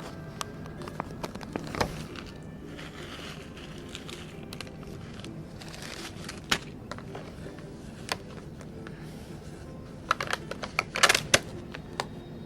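Food containers and packaging being handled and set down: scattered light clicks and taps, with a quick flurry of them near the end, over faint background music.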